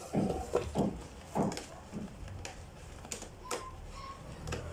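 A cat scratching and pawing at the inside of a cardboard box: a run of irregular cardboard scrapes and rustles, roughly two a second.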